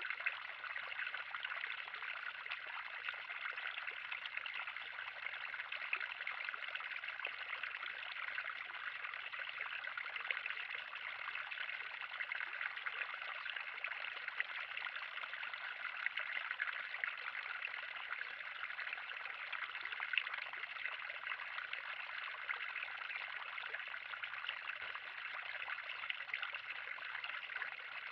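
Water running steadily in a 3000-gallon pond, a continuous trickling splash.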